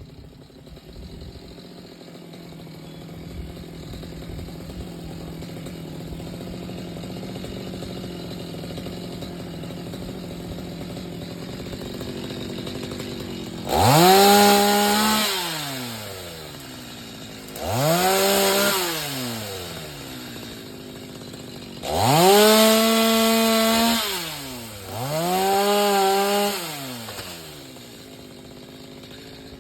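Two-stroke chainsaw running steadily, then opened up to full throttle four times from about halfway through. Each burst rises sharply in pitch, holds for a second or two and drops back.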